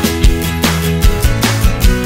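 Background music with a steady drum beat over sustained instrumental tones.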